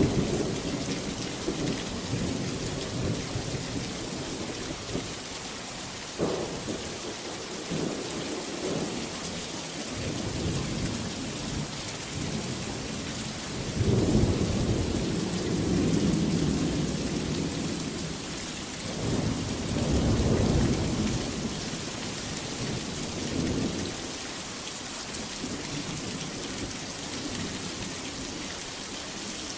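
Steady heavy rain with thunder rolling through it: a sharp clap about six seconds in, then long low rumbles about halfway through and again a few seconds later.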